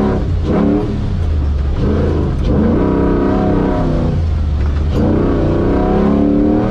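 Competition 4x4 winch truck's engine revving up and easing off again and again, heard from inside the cab, with a few short knocks from the truck.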